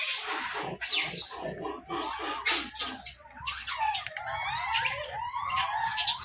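A crowd of rhesus macaques squealing and screeching, many short overlapping calls with a loud shriek right at the start.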